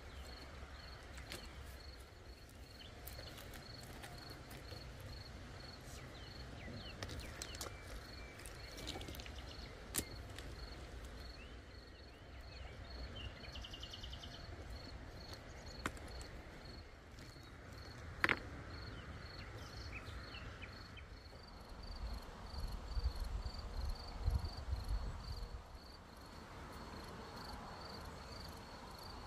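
A cricket chirping steadily outdoors, a short high chirp about twice a second. A few sharp clicks and knocks of river stones being handled break in, the loudest about two-thirds of the way through, with some low rumbling shortly after.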